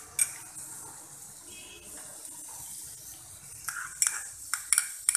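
Chopped onion sizzling in melted butter in a frying pan, a steady hiss. Near the end a spoon scrapes and knocks against the pan several times.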